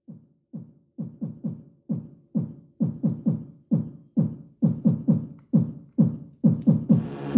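Electronic music: a beat of deep kick-drum hits, each dropping in pitch as it decays, in an uneven pattern that grows louder and busier. A dense wash of noisy music comes in right at the end.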